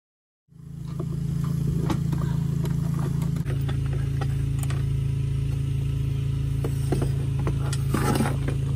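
A vehicle engine runs steadily with a low hum, while parts in the engine bay are handled: scattered clicks and clatter, with a brief rattle near the end.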